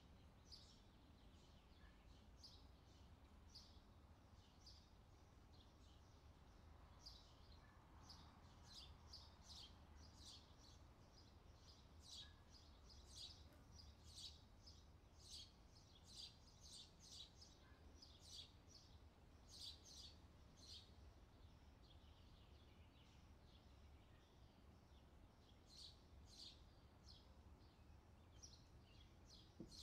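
Small birds chirping faintly: many short, high chirps, in quick runs at times, over a steady low background rumble.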